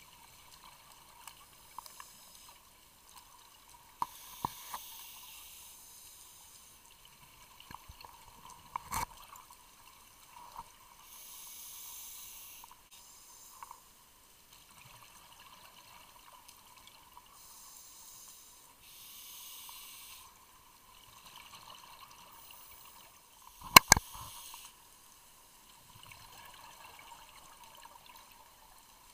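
Underwater sound of a scuba dive: bursts of bubbling hiss every few seconds from a diver's exhaled breath, with a few sharp clicks, the loudest a double click near the end.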